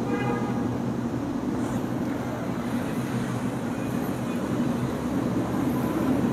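Steady low hum and hiss of room noise, with a short pitched sound at the very start.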